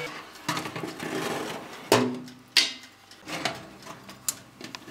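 Irregular knocks and clanks of metal bakeware being handled, with two sharp clanks about two seconds in and a few lighter knocks after.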